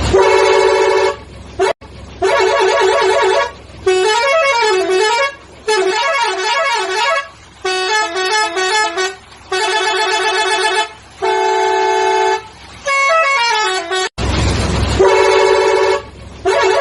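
Pakistani truck's musical multi-tone horn playing short melodic tunes, with the pitch stepping up and down. It sounds again and again in phrases of about a second and a half with short breaks. Near the end there is a brief noisy, hissing blast.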